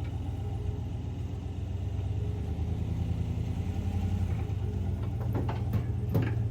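Tow vehicle's engine running under load as it pulls a heavily loaded trailer that was stuck sitting on its axles. The engine note rises a little about four seconds in, and a few knocks come near the end.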